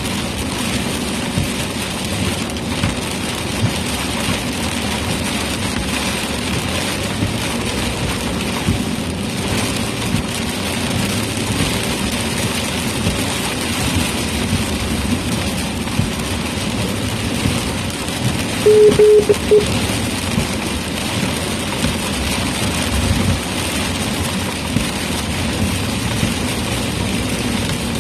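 Steady road and rain noise inside a moving vehicle driving through a storm. A brief electronic beep sounds about two-thirds of the way through.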